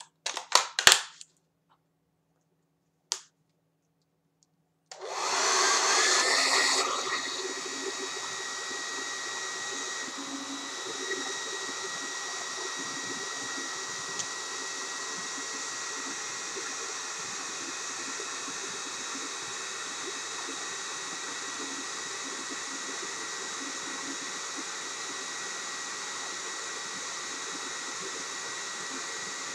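A few sharp clicks in the first second and one more about three seconds in, then a handheld hair dryer switches on about five seconds in and runs steadily as a blowing noise with a faint high whine. It is louder for its first two seconds, then settles to an even level.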